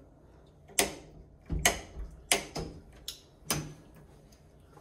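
White rocker wall light switches being flipped: about six sharp clicks at irregular spacing, over a few seconds.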